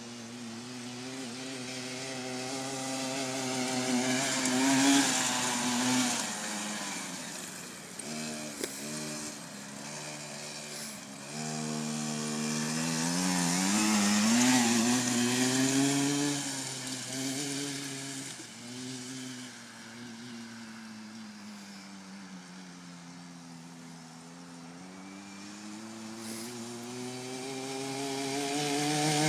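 Small engine of an Eton 50cc ATV running and revving as it is ridden around, its pitch rising and falling with the throttle. It grows louder as the quad comes close, about five seconds in, again around the middle, and once more near the end.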